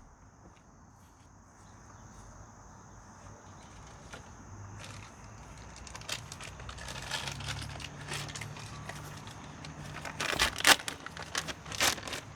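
Crinkling and rustling of packaging with scattered clicks and taps as a new sprocket is taken out of its box, sparse at first and busier in the last couple of seconds.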